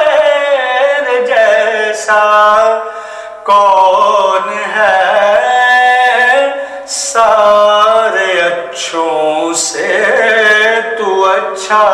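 A man singing an Urdu naat solo, drawing out long, ornamented notes that waver and glide, with short breaths between phrases.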